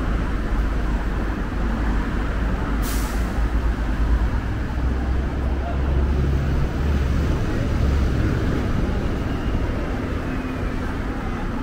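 Road traffic with a steady low rumble of passing vehicles, including a city bus. About three seconds in comes a short, sharp hiss, typical of a heavy vehicle's air brakes.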